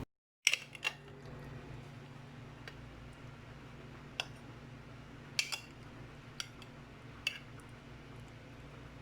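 Faint kitchen clinks and taps of utensils against dishes, about eight scattered sharp clicks over a low steady hum.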